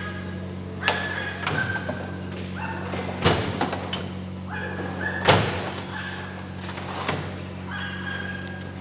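Four sharp knocks and clatters of parts being handled during engine teardown, roughly two seconds apart, over a steady low hum.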